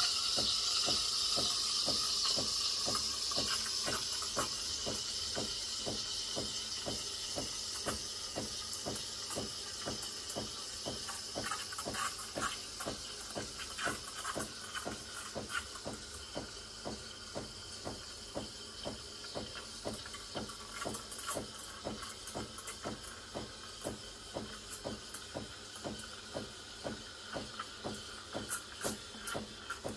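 Breville Barista Pro steam wand steaming milk in a stainless jug: a steady hiss of steam over the machine's even pulsing, a few pulses a second. The hiss is strongest at first and thins as it goes, with scattered crackly ticks in the second half.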